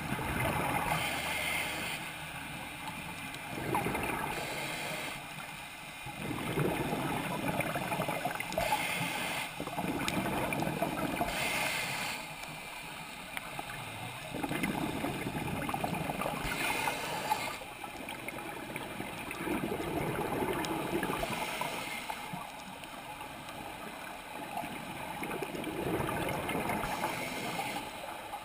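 Scuba diver's regulator breathing, heard underwater: a hissing inhale and then a burst of exhaled bubbles, the cycle repeating every few seconds.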